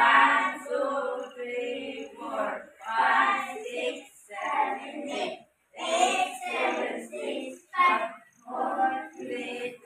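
A group of children singing together in short phrases with brief gaps between them.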